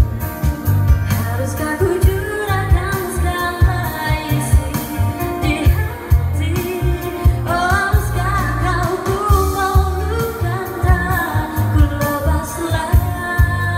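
A woman sings a slow pop song through a microphone and PA, accompanied by a Yamaha keyboard playing chords over a steady low beat.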